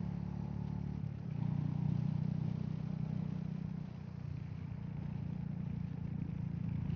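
Royal Enfield Meteor 350's single-cylinder engine running steadily under way, heard from the rider's seat. The engine note gets a little louder just over a second in and eases briefly around four seconds in.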